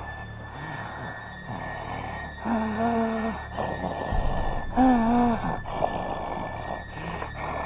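Two short wordless vocal sounds from a person, each under a second and about two seconds apart, over a steady static hiss with a faint high whine.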